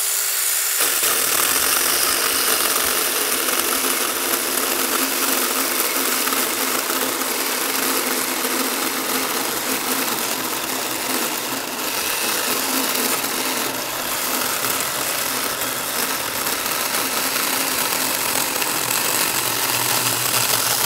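Tomyvic 6-inch cordless mini electric chainsaw running steadily under load, its chain cutting through a log.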